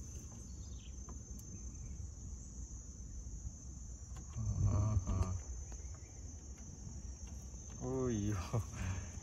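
A steady high-pitched insect drone over a low rumbling haze. A person's short voiced sounds come in about halfway through and again near the end.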